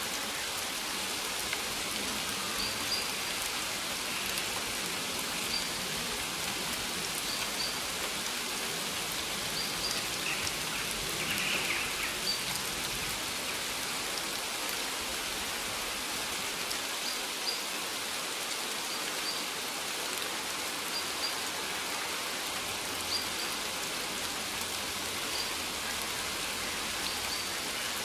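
Steady rain falling on maize plants, an even patter without pause. Faint short high chirps come now and then.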